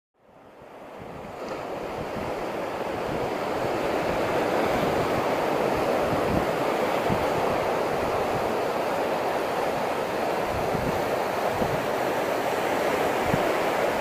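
Ocean surf breaking and washing in as foam over a rocky shore: a continuous rushing that fades in over the first couple of seconds. Wind buffets the microphone with irregular low thumps.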